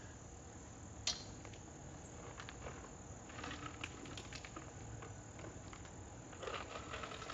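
A faint, steady chorus of crickets, with a sharp click about a second in and short bursts of rustling clatter near the middle and near the end.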